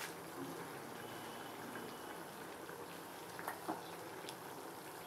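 Hot oil in a kadai sizzling faintly and steadily, with a few small pops about three and a half to four seconds in.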